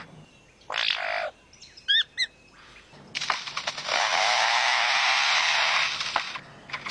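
A bird making strange calls: a short harsh rasp, two quick down-slurred chirps, then a long harsh hissing rasp lasting about three seconds.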